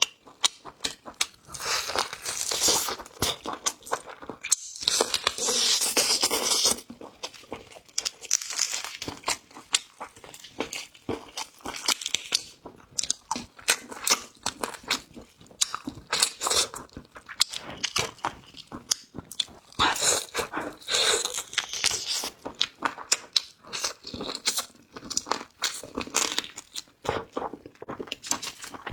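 Close-miked mukbang eating sounds: chewing and biting into kiln-roasted chicken, with wet crunching and smacking in repeated bouts.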